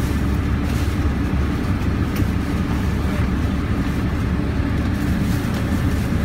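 Parked tour coach's engine idling: a steady low rumble.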